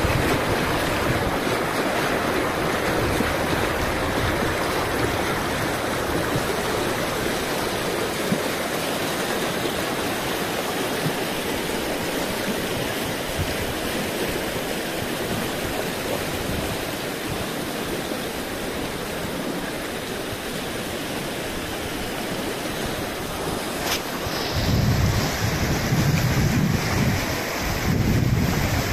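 Fast, muddy river rushing over stones: a steady noise of flowing water. Near the end, wind gusts buffet the microphone with low rumbles.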